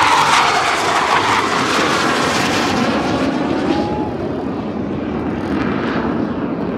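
Jet aircraft flying past overhead: a loud, rushing engine roar, loudest at first, then easing after about four seconds.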